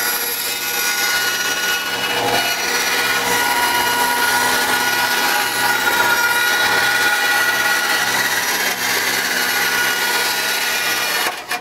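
Ryobi bandsaw cutting through Kydex sheet: a steady, loud hiss with a thin whine over the running motor as the blade works through the plastic. The hiss cuts off sharply near the end.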